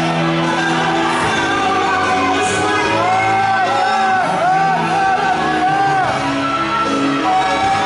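Live gospel music: a band playing with singing and shouting voices.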